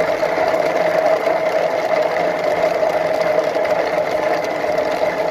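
Electric kitchen blender running steadily, its motor whirring as it grinds coconut with water.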